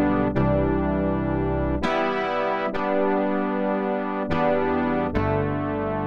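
MES Mini 7 synthesizer playing a polyphonic keyboard patch: five sustained chords in turn, each struck and held for about a second.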